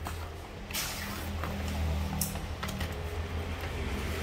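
Power tools being handled and set down: a few short clicks and knocks over a low, steady hum.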